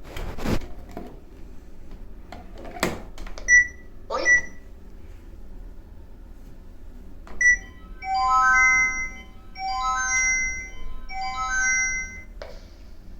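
Noritz water heater control panel sounding: a couple of clicks, three single high beeps from button presses, then a short electronic chime melody played three times in a row.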